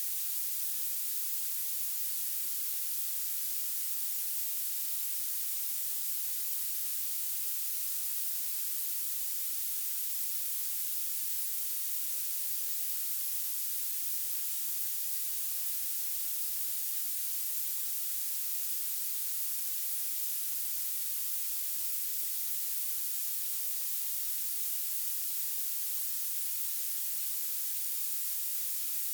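Violet noise: a steady, unchanging hiss weighted heavily toward the very highest frequencies, with almost nothing in the low end.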